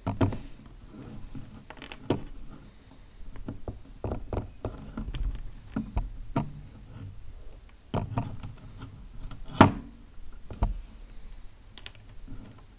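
Lego Technic plastic parts and pneumatic tubing being handled and fitted onto the cylinders: irregular clicks, taps and rubbing, with one sharp click, the loudest sound, a little under ten seconds in.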